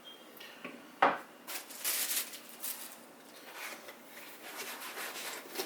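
Handling noise from the parts of a microphone boom-arm kit: one sharp knock about a second in, then scattered rubbing, scraping and small clicks as the pieces are moved and fitted.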